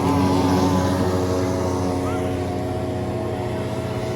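Small two-stroke string-trimmer engines in homemade RC boats running at high revs out on the water, a steady buzzing drone whose pitch wavers a little as the boats race.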